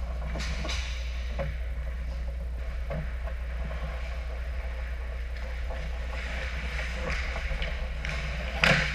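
Ice hockey skates scraping the ice and sticks clicking and knocking, over a steady low hum. A loud, sharp scrape of ice comes near the end as players close in on the net.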